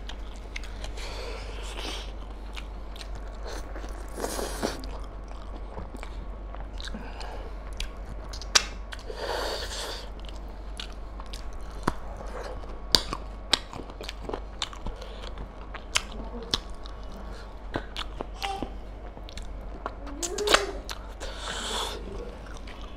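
Close-miked chewing and biting of mutton curry and rice: wet mouth sounds with many short sharp clicks, and a few longer breathy sounds.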